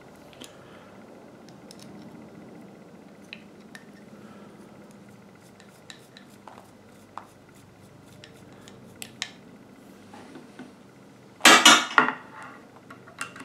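Steel cleaning-rod sections with brass fittings clicking and clinking as they are handled and fitted together, in scattered small clicks. A louder burst comes near the end.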